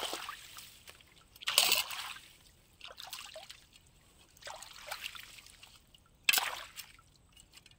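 Shallow canal water splashing and sloshing as a long-handled tool is worked through brush lying in it: about five separate splashes, the loudest about one and a half and about six seconds in.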